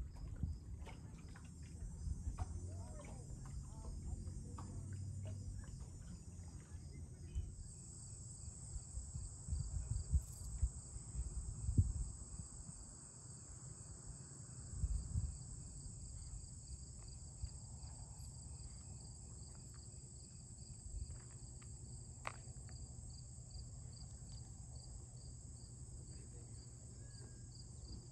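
Late-summer insect chorus: crickets chirping in a fast, even pulsing trill, with a steady high buzz joining about seven seconds in. Under it is a low rumble with a few knocks, loudest in the first half.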